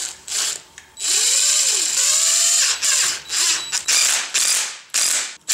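Cordless impact driver running bolts in on a diesel engine's timing gear, in a series of trigger bursts. The longest burst starts about a second in and lasts nearly two seconds, with the motor pitch rising and falling. Several short bursts follow.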